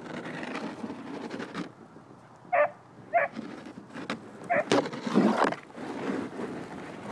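A dog giving three short, sharp barks a little over half a second apart, then a louder stretch of rough growling noise.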